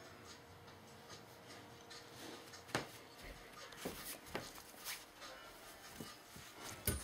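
Quiet room with a few soft knocks and rubbing sounds scattered through, the sharpest knock near the end.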